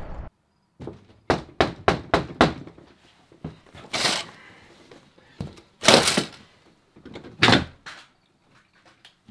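Knocking and banging on a camper trailer's door: a quick run of about six sharp knocks, then three louder bangs about two seconds apart.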